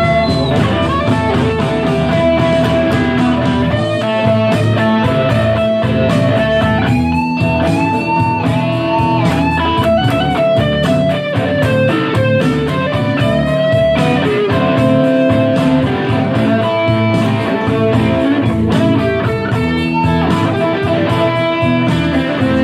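Live band playing a rock-blues number with an electric guitar lead, its notes bent up and down over a steady beat.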